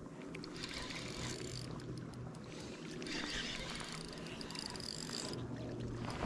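Spinning reel ticking and whirring softly as a hooked fish is fought and line is worked on the reel.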